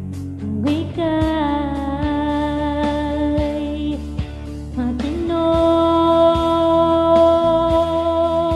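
A woman singing a song cover into a condenser microphone through a V8 sound card over a backing track. She holds two long notes, the first sliding up into pitch about a second in and the second starting about halfway through.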